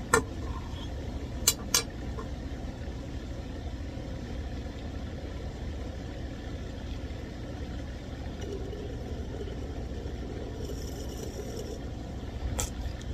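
A few sharp clinks of a glass mini dab rig being handled while it is filled with water, over a steady low hum.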